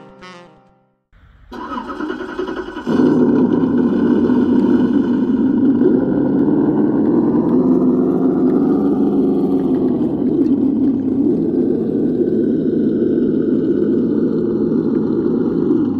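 Simulated V8 engine sound from the Traxxas TRX-4 Ford Bronco crawler's sound module. It starts up about a second in, gets louder at about three seconds, then runs steadily at idle, its pitch rising and falling a little midway.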